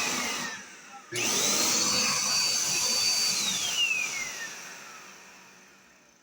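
Dirt Devil Endura MAX upright vacuum cleaner motor switched on briefly and off, then on again. Its high whine rises quickly to a steady pitch and holds for about two seconds. It is then switched off and winds down, the whine falling in pitch as it fades.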